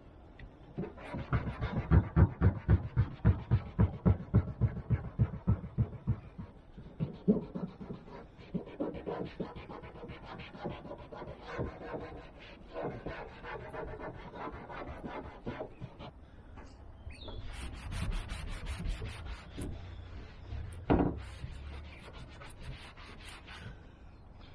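A cloth scrubbing a patch of a van's roof in quick back-and-forth strokes, about five a second. The strokes are loudest in the first few seconds and then go on lighter and more unevenly, with a single knock near the end.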